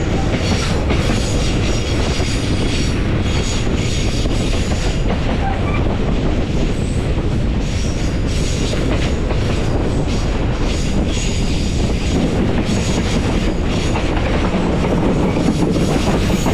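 TAZARA passenger train running at speed, heard from an open carriage window: a steady, loud rumble of the carriages with repeated clicks of the wheels over the rails.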